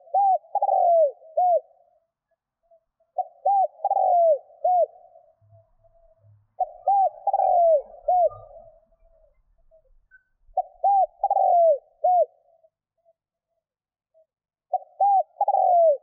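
Spotted dove cooing: five phrases about four seconds apart, each a short run of arched coo notes, the last beginning near the end.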